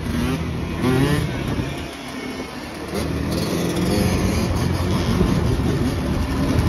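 Yamaha Blaster quad's two-stroke single-cylinder engine, bored out to 260cc, revving up in rising sweeps, about a second in and again from about three seconds on, with other quads and a dirt bike running nearby.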